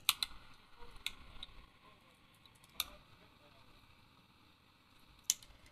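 Small cutters snipping the lacing on a single-phase motor's stator winding: about five sharp, separate clicks, two close together at the start, then one at about a second, one near three seconds and one near the end.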